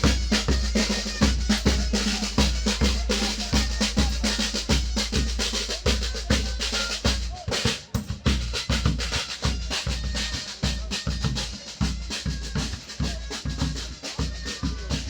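Live drum ensemble playing a fast rhythm: dense rapid strokes and rolls over steady deep bass-drum beats, with a brief pause about halfway.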